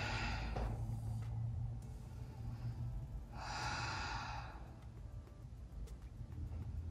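A woman breathing audibly while holding a supine yoga twist, with one long breath about three and a half seconds in, over a low steady hum.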